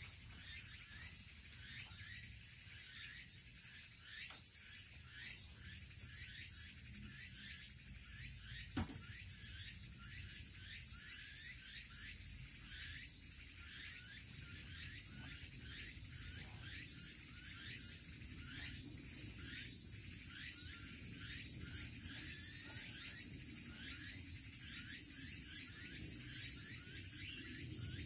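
Steady outdoor chorus of singing insects: a continuous high-pitched buzz with many faint, quick chirps running through it, growing a little louder in the last third.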